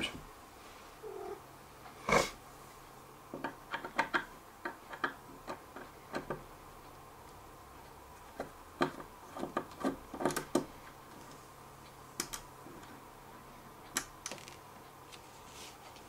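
Scattered small clicks and taps of a precision screwdriver and loose tiny screws being handled, in irregular clusters.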